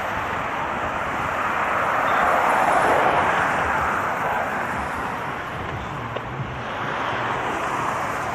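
Road vehicle passing, a rushing noise that swells about two to three seconds in, fades, then builds again near the end.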